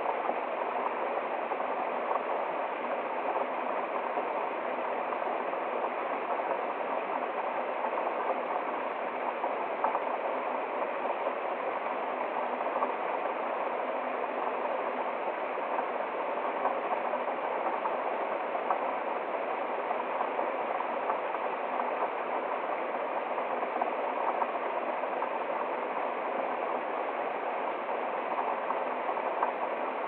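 A small waterfall and stream running steadily over rocks.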